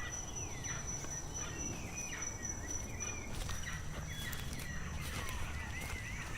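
Wild outdoor ambience: birds chirping again and again over a low rumble, with a steady high insect drone that fades about halfway through.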